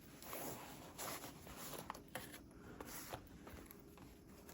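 Faint rustling and scraping of packaging being handled as a notebook is taken out of a package, with a few light clicks.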